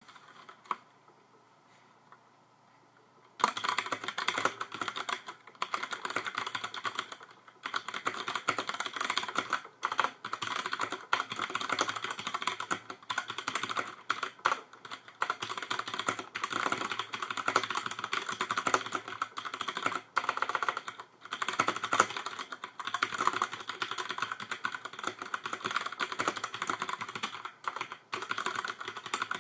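Filco Majestouch-2 tenkeyless mechanical keyboard with Cherry MX Brown tactile, non-clicky switches being typed on: fast, continuous keystrokes. The typing starts about three seconds in, after near silence with a single keystroke, and has a few brief pauses.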